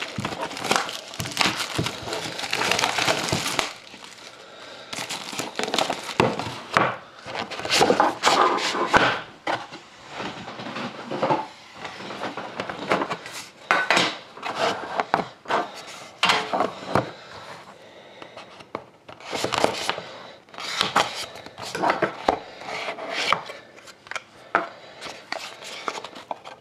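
A sealed hockey-card hobby box being opened and unpacked by hand. First a few seconds of dense crinkling, like plastic wrap being torn off, then irregular taps, clicks and rustles of cardboard and cards being handled.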